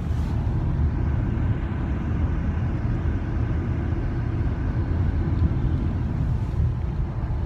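A car driving along the road, heard from inside the cabin: a steady low rumble with no breaks.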